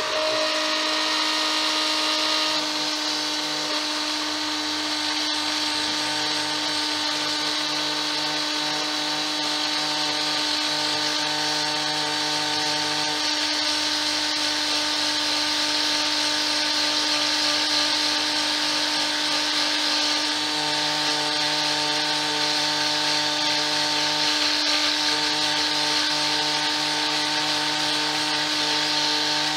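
Small electric mini lathe running at a steady speed with a constant motor hum. A coarse sandpaper block is held against the spinning wooden dowel, adding a continuous rasping hiss as it rough-shapes the float body.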